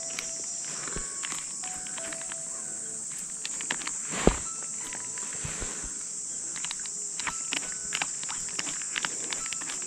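Steady high-pitched insect chorus, with scattered small clicks and one louder knock about four seconds in.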